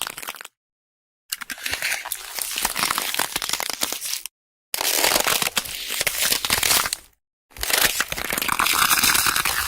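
A string of separate crunching, crackling sound effects, each two to three seconds long, cut apart by dead silence. The end of one dies out about half a second in, then three more follow.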